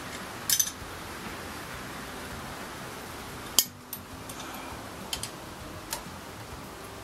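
Hand tools clinking against a steel lathe chuck while its mounting bolts are snugged up and it is trued for runout: a double click about half a second in, one sharp, louder clink past halfway, and a few lighter ticks near the end, over a steady background hiss.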